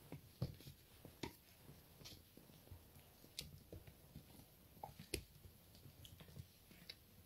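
Faint scattered taps, clicks and scuffs of young pets playing on a wooden floor, with a few sharper taps standing out.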